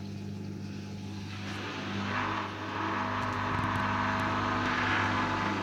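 Hoover Dynamic Rapid 44 washing machine's motor humming steadily on its second spin. A rushing sound from the drum builds about a second and a half in and grows louder as the machine rebalances its load.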